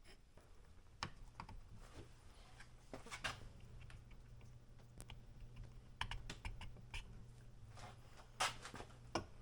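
Faint, scattered clicks and light metal taps from a piston pin being worked by hand into a piston and connecting rod, over a low steady hum.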